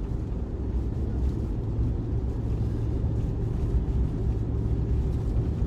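Steady low drone inside the cabin of a four-wheel-drive Z71 driving through deep snow: engine and road noise with a constant low hum and no sudden sounds.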